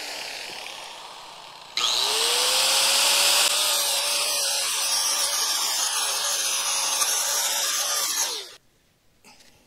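Corded angle grinder with a flap disc grinding the steel lip of a mini excavator's quick hitch: quieter at first, then from about two seconds in a loud, steady grinding hiss with the motor's tone rising and holding, until it stops near the end.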